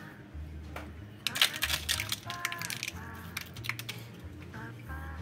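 Sesame seeds sprinkled over egg-washed braided brioche dough in parchment-lined pans: a scatter of small dry ticks, thickest from about one to two seconds in.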